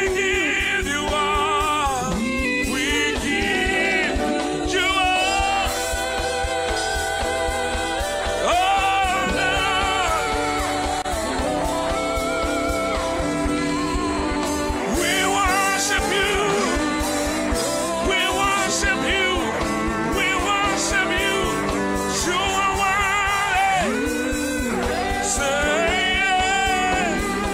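Live gospel worship song: a band plays under lead and backing singers, who hold long, wavering notes with heavy vibrato over a steady beat.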